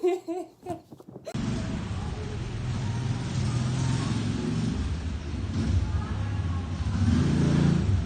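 A brief voice cut off about a second in, then a steady low engine-like hum, as of a vehicle running.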